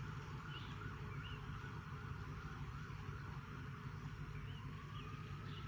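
Distant emergency-vehicle siren wailing faintly, its pitch slowly rising and falling, over a steady low rumble of background noise.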